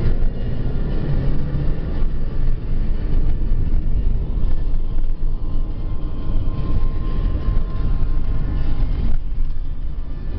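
Car driving on a highway: a steady low rumble of engine and tyre noise.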